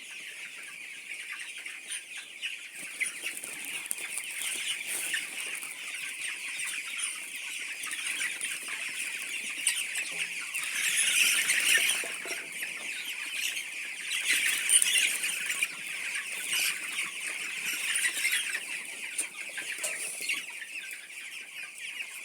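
A flock of several hundred young chickens peeping and cheeping continuously as a dense, high-pitched chorus, swelling slightly about halfway through.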